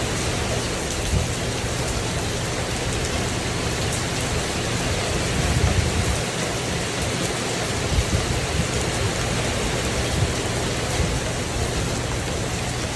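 Steady rain falling on a tin porch roof: a dense, even hiss with small louder spikes from heavier drops scattered through it.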